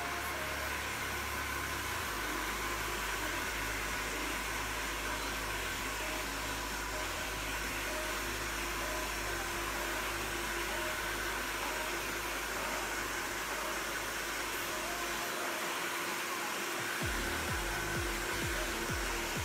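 Hair dryer running steadily with a constant whine, blow-drying freshly dyed wet hair.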